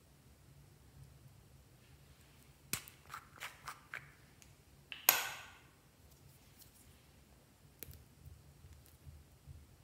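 Small plastic novelty makeup case being handled and opened: a quick cluster of light clicks and taps, then one sharp pop with a short ringing tail about five seconds in, and a few faint clicks near the end.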